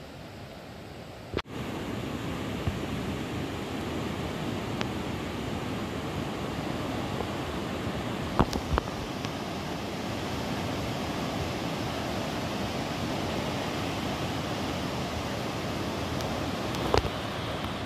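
Steady rush of a fast, silty river running through rocky rapids, fainter at first and louder from about a second and a half in. A few brief clicks sound in the middle and near the end.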